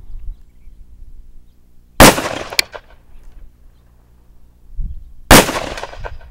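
Two shots from a Smith & Wesson Model 29 .44 Magnum revolver, about three seconds apart, each a sharp, very loud crack trailing off in echo.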